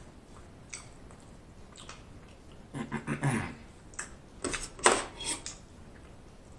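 Quiet eating sounds from a man chewing a mouthful of food: soft mouth clicks, a brief vocal sound from the throat about three seconds in, and a few louder sharp mouth clicks around five seconds.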